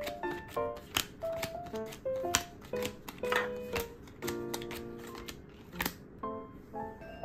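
Playing cards being dealt onto a table, each landing with a quick slap, several a second, stopping about six seconds in. A light melody from background music runs underneath.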